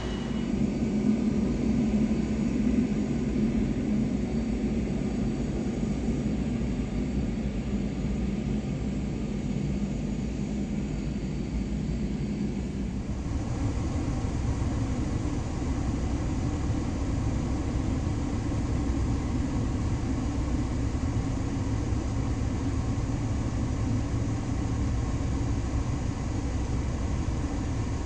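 Jet airliner engines running with a steady low rumble; the sound changes abruptly about thirteen seconds in.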